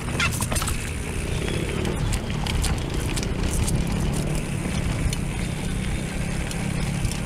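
Mountain bike rolling down a dirt trail: tyres on dirt and leaves, with frequent clicks and rattles from the bike and a steady wind rumble on the microphone.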